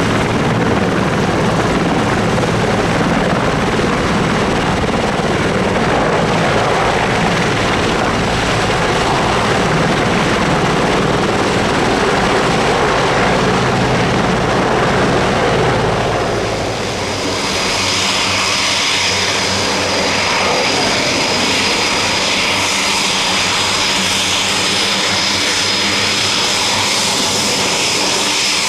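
German Air Force CH-53G heavy helicopter in a low hover, its rotors and twin turboshaft engines making a deep, dense rumble. About seventeen seconds in, this gives way to a Eurofighter Typhoon's twin EJ200 jet engines on the ground: a steady high whine over a roar.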